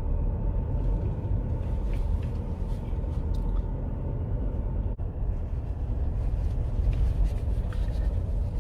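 Steady low rumble of road noise inside a vehicle driving on a rough dirt road, with faint small rattles and clicks.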